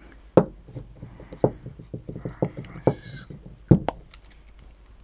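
Hand screwdriver and small hardware being handled: a screw dropped into a ski-touring binding adapter and driven in, giving light ticking clicks with several sharper knocks in between.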